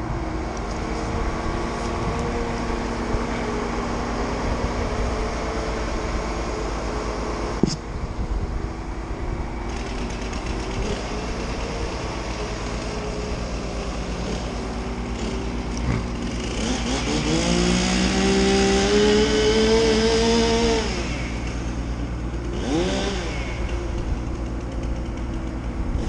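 Telescopic crane's diesel engine running steadily, revving up two-thirds of the way through and again briefly near the end as the crane works.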